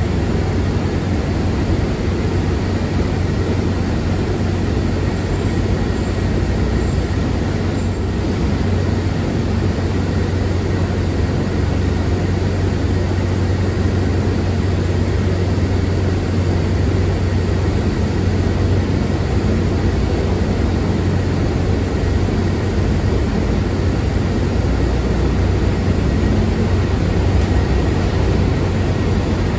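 Airbus A350-1000's Rolls-Royce Trent XWB turbofan engines running steadily: a loud, even rushing noise with a low hum underneath.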